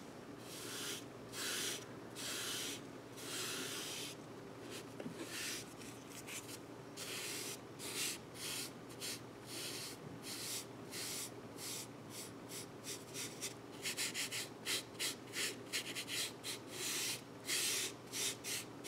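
Foam sponge brush rubbing wood stain along a wooden strip: a series of soft scratchy strokes, slower at first, then shorter and quicker ones in the last few seconds.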